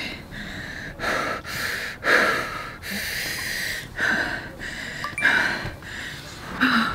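A woman breathing heavily and noisily in and out, about one breath a second with some drawn out, as she tries to calm herself from panic.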